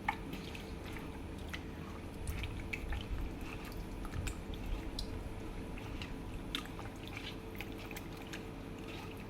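Raw chicken pieces being mixed by hand in a yogurt, lemon and spice marinade: soft wet squelches and small irregular clicks, over a faint steady hum.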